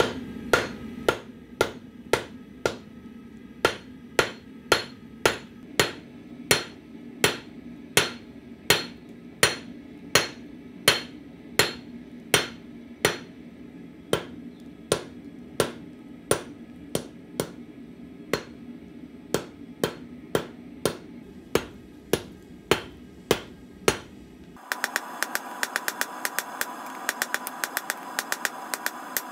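Hand hammer striking red-hot rebar on a steel anvil, steady blows about two a second. Near the end this gives way to quicker, lighter taps over a steady ringing tone.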